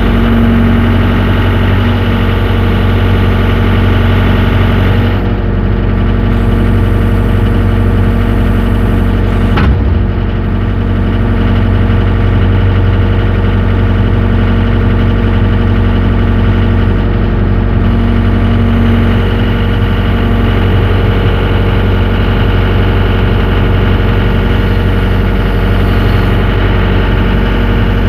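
Yanmar diesel engine of a 6.2-ton mini excavator running steadily while the boom and arm are worked hydraulically. One sharp knock comes about ten seconds in.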